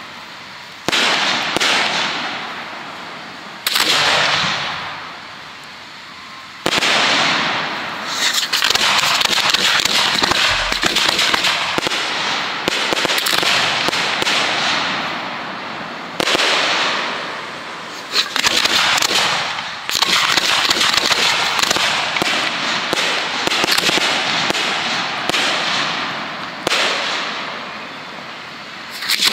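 Professional 1.3G display fireworks going off: a new shell bursts every couple of seconds, each bang trailing off in a long crackling hiss. A dense run of crackle fills the middle stretch.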